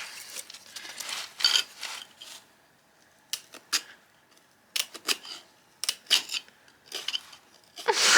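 Short, irregular scraping strokes of a metal blade, coming in small clusters with brief pauses between them.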